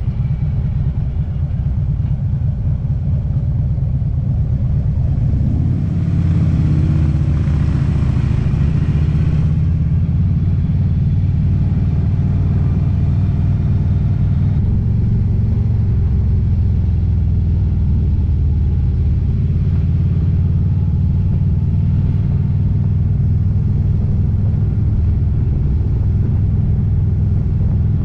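Harley-Davidson motorcycle engine running steadily under way. About six seconds in it revs up and gets louder, with a few seconds of hiss after that.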